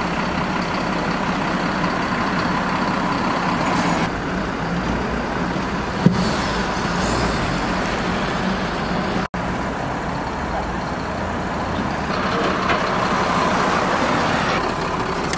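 Flatbed tow truck's engine running steadily while a crashed car is pulled up onto its tilted bed. There is a single sharp knock about six seconds in, and the sound cuts out for an instant a little after nine seconds.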